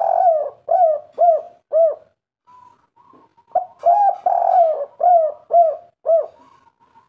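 Spotted dove cooing in its 'kuk 3' song: two phrases, each a longer coo followed by three short, evenly spaced 'kuk' notes, the first phrase already under way at the start and the second beginning about halfway through.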